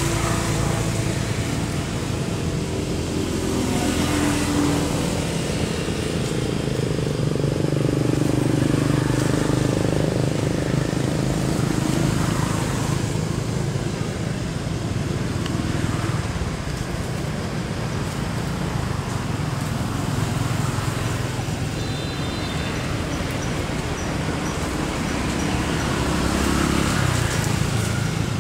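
Steady low rumble of engine and traffic noise, swelling slightly a couple of times.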